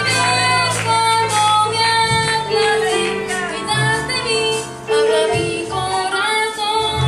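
Church choir singing a worship song, women's voices to the fore, over instrumental accompaniment with a bass line.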